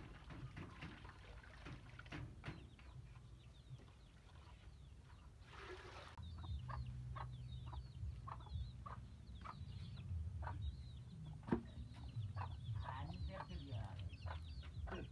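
Chickens clucking and chicks cheeping, short calls repeating over and over, busier in the second half. A single sharp knock about three-quarters of the way through is the loudest sound.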